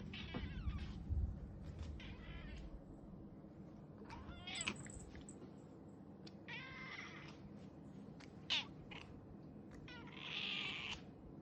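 Domestic cat meowing repeatedly: about six separate meows a second or two apart, the last one longer than the rest.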